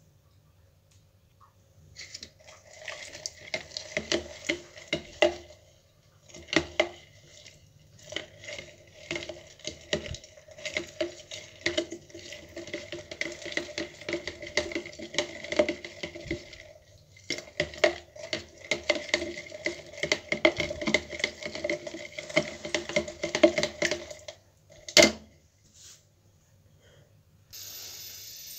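A steel spoon stirring salt into vinegar with whole spices in a plastic tub, scraping and clicking quickly against the tub, with a few short pauses. One sharp knock near the end.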